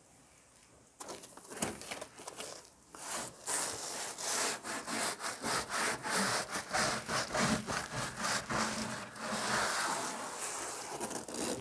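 A cloth rubbed hard back and forth over the truck bed's coated rib, wiping it down with alcohol before the adhesive promoter goes on: a rhythmic scrubbing of about two to three strokes a second that starts about a second in.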